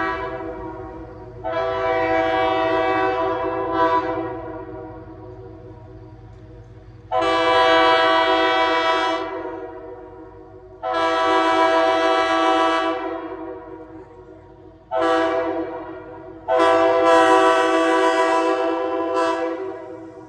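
RS3K air-powered train horn sounding a steady chord in five separate blasts. The last four go long, long, short, long.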